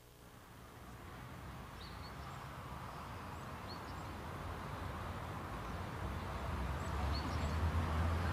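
Outdoor street ambience: a steady rushing hum with a low rumble of distant traffic, slowly growing louder, and a few short high bird chirps.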